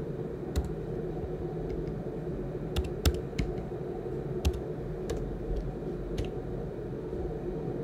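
Typing on a computer keyboard: about eight separate keystrokes spread over several seconds, with a quicker cluster about three seconds in, as numbers are entered into a spreadsheet.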